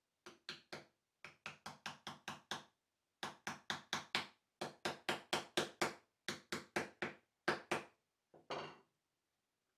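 Mallet tapping a hand-cut dovetail joint of a wooden box together: sharp wooden knocks in quick runs of three to seven, about five a second, with short pauses between runs, and a duller knock near the end.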